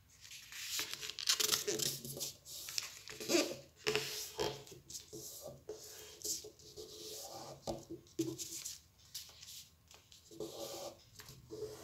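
Yellow paper being folded and creased by hand, with irregular rustling and scraping as fingers slide along and press the folds.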